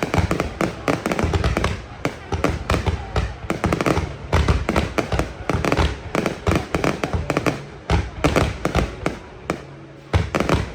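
Fireworks going off in a dense, rapid string of bangs and crackles, many a second. They ease off briefly near the end, then start again.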